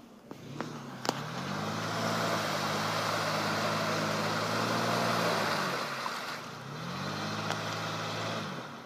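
Mercedes M-Class SUV's engine revved up and held for about four seconds, dropping back, then revved again for about two seconds, with a hiss of wheels spinning in mud while it strains to climb out of a boggy rut.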